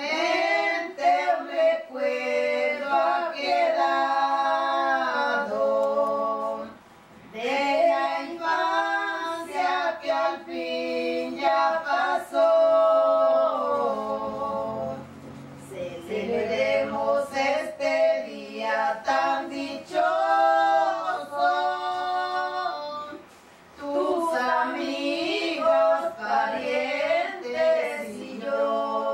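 Women singing a song unaccompanied, in long sung phrases with two short breaks for breath, about seven and twenty-four seconds in.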